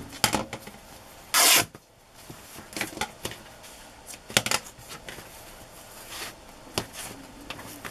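A length of fabric torn across in one short rip about a second and a half in, to give it a straight edge, with rustling and light clicks of the cloth being handled around it.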